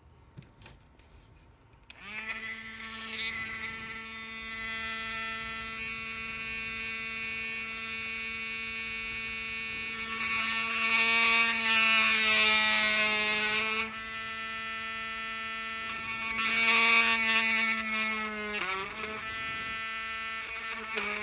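Small Dremel rotary tool with a 1 mm drill bit, starting about two seconds in and running with a steady high whine. It grows louder and harsher twice as the bit bites into the action figure's hard plastic, and dips in pitch under load near the end.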